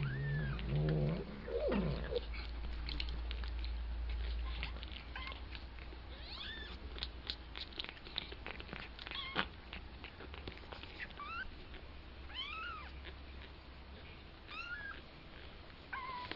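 Two-week-old kittens mewing: many short, thin, high-pitched cries at irregular intervals, some sliding up and down in pitch, with a lower, louder call in the first two seconds.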